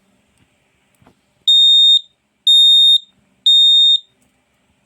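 Home smoke alarm sounding its test: three loud, high-pitched beeps, each about half a second long with half-second gaps between them, in the temporal-three alarm pattern.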